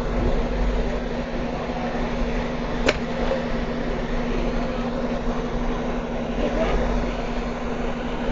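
Hot air rework station blowing onto a laptop motherboard to desolder capacitors: a steady rush of air with a constant hum. A single sharp click comes about three seconds in.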